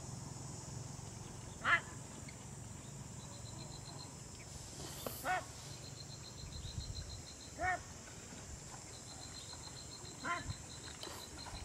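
Short animal calls, each rising and falling in pitch, four times a few seconds apart, over a steady high-pitched hum.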